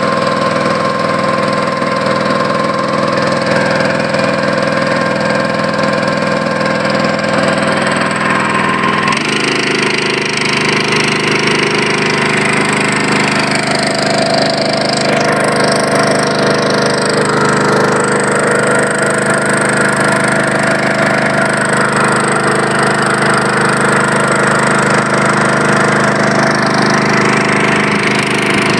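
A small wooden river boat's engine running steadily under way. The engine picks up speed about nine seconds in.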